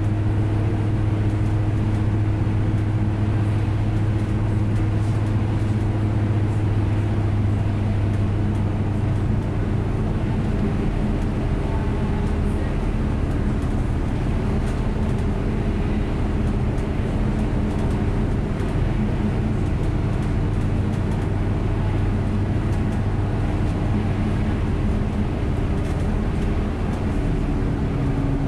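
A bus engine running steadily while the bus drives along an open road, heard from on board as a constant drone. The engine note changes about a third of the way through and again near the end.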